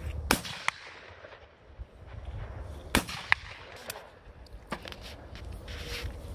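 Two shotgun shots from a break-action shotgun fired at a pair of clay targets, about two and a half seconds apart, followed by a couple of smaller clicks as the gun is broken open.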